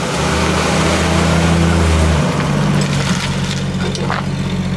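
1965 Ford Falcon driving past with its engine running. About two seconds in, the deep low hum drops away and a higher, steady engine note takes over as the car pulls away.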